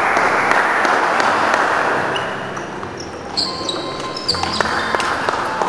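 A steady wash of noise, then a table tennis rally: the ball clicking sharply off bats and table several times, starting about three and a half seconds in.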